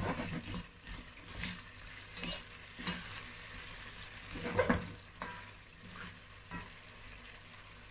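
A spatula stirring fried fish pieces in a thick tomato sauce in a pot, the sauce sizzling. It makes irregular scrapes and knocks against the pot, the loudest a little past halfway, and grows quieter near the end.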